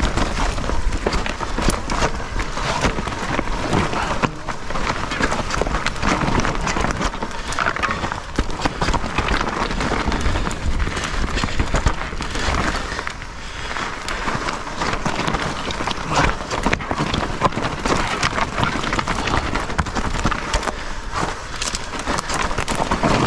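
Mountain bike being ridden down a rough dirt trail: a steady rush of tyre and riding noise with frequent knocks and rattles from the bike over rocks and roots, and heavy wind buffeting at the bottom end.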